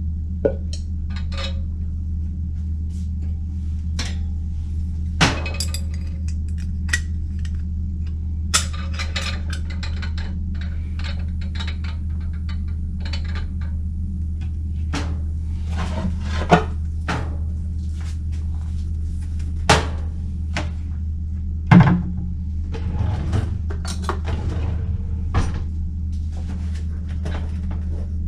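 Scattered clinks and knocks of kitchenware being handled, over a steady low hum.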